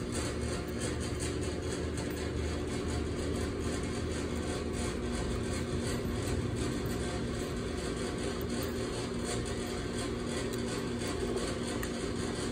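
Steady mechanical hum of a running motor, even and unbroken.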